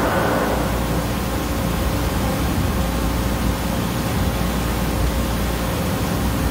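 Höfler HF 2000L CNC gear hobber running mid-cut: a steady machine hum and hiss with a faint constant whine.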